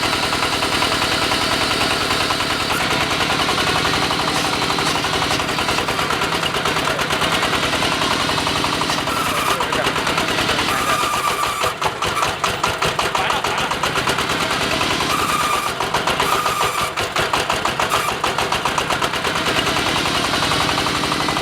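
AKL-150Y water well drilling rig's diesel engine running hard, a loud, fast, even pulsing. About halfway through, and again later on, the rhythm turns choppier and uneven.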